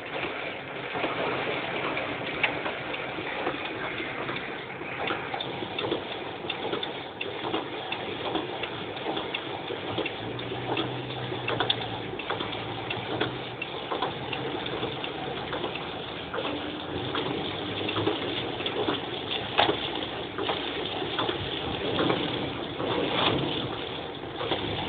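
Heavy rain on a car, heard from inside the cabin: a steady wash of water with many sharp ticks of drops hitting the roof and windscreen, and water gushing under the tyres as the car drives through flooded streets.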